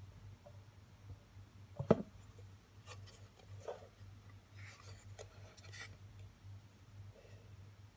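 Light handling noises: one sharp knock about two seconds in, then scattered rubbing and small clicks, over a steady low hum.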